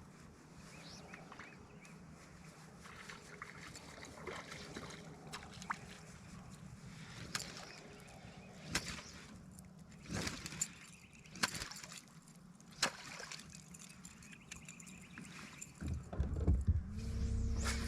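Scattered sharp knocks and clicks of gear handled on a fishing boat over a low steady hum. Near the end a motor starts and runs steadily with a louder, even hum.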